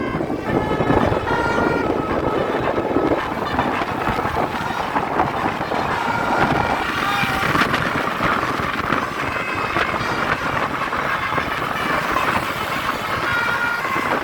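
Indonesian bus 'telolet' horn: a multi-tone musical air horn sounding short notes that step up and down in pitch, several times over, over steady road and engine noise.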